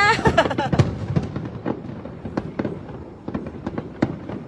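Fireworks finale going off: a dense run of bangs and crackles, loudest and thickest in the first second and thinning out after.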